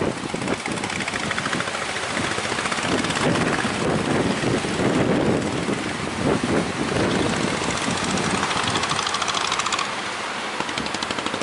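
Speedboat's outboard engine running steadily with a fast, even pulse, over heavy wind noise.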